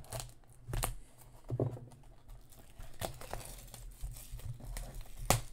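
Clear plastic shrink-wrap being torn and crinkled off a sealed trading-card hobby box, in irregular tears and crackles with a sharper snap near the end.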